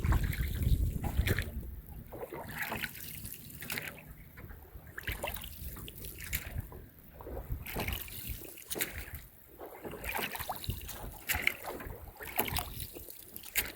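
Rowboat oars dipping and pulling through pond water, with splashing and water trickling off the blades on each stroke, about one stroke every two and a half seconds.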